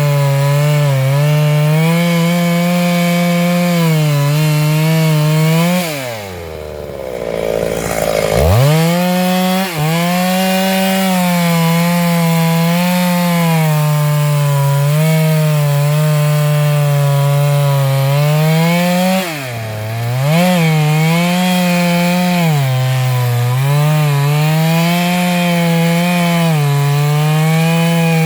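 Stihl MS 382 two-stroke chainsaw cutting into a large sengon trunk at high revs, its engine speed wavering as the chain bites. About six seconds in the revs fall away toward idle, then climb back up about two seconds later. There is another short dip in revs about twenty seconds in.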